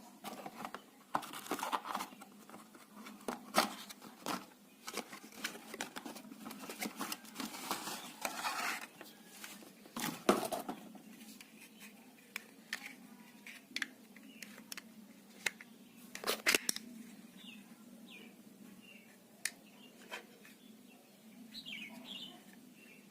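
Hands opening and handling a parcel's packaging close to the microphone: scattered crinkling, rustling and sharp clicks, with louder bursts of handling about ten seconds in and again past the middle.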